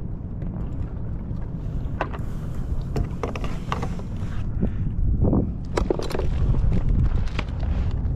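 Wind buffeting the microphone over water lapping at a kayak's hull, with a scattering of short clicks and knocks of gear being handled.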